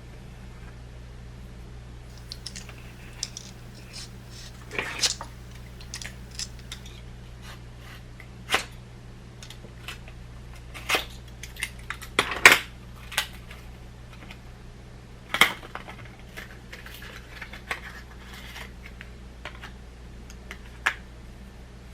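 Irregular clicks, taps and light scrapes of small parts and tools being handled while working inside a Mac mini, over a steady low hum.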